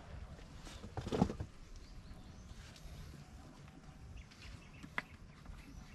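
Quiet open-air field ambience with a brief knock about a second in and a sharp click near the five-second mark.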